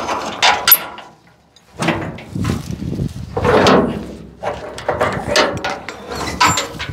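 Metal clanks and rattles as the chained latches on the steel tailgate of a 1944 CMP army truck are unhooked, with a sharp clack about a second in and a longer rustling, scraping stretch in the middle.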